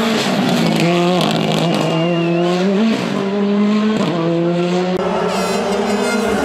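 Rally car accelerating hard under full throttle, its engine pitch climbing and dropping back at each of about three upshifts. A brief high squeal comes about five seconds in.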